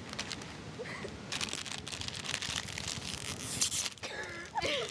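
Crinkling of a plastic-foil potato chip bag being handled close to the microphone, then in the last second a wavering, drawn-out vocal cry from a girl.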